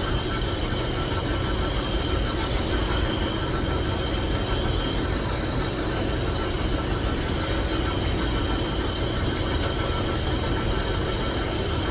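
Metal lathe running steadily, a constant machine drone with a faint high tone over it. Two brief hisses cut in, one about two and a half seconds in and one about seven and a half seconds in.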